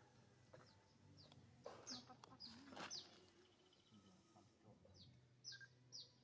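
Faint, high, short falling chirps from a small bird: a few scattered peeps, then a steady run of them about every half second from about five seconds in. A brief rustle comes around two to three seconds in.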